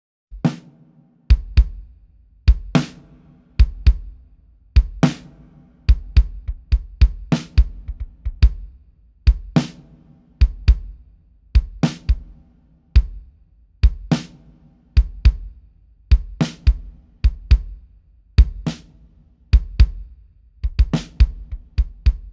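Recorded kick drum and snare drum playing a steady repeating beat together: deep kick thumps alternating with sharp snare cracks. The kick has its low end boosted for punch, and the snare has its lows cut to 100 Hz and a boost around 4 kHz for snap.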